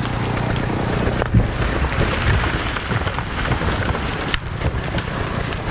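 A large tree crashing down through the branches around it: dense cracking and snapping of wood, with heavy thuds about one and a half and two and a half seconds in. A chainsaw idles faintly under it at first.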